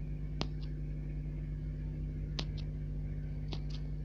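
Steady low background hum with a few faint, short clicks spaced a second or more apart, some in quick pairs.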